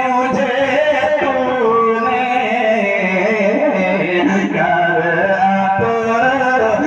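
A man singing an Urdu naat solo into a microphone, drawing out long, bending notes in a melismatic devotional style.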